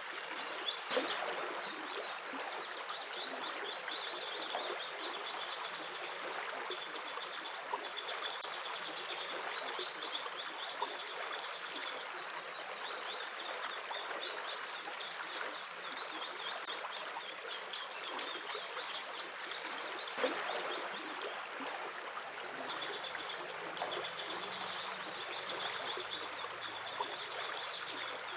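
A stream running steadily, with many small birds chirping and trilling over it.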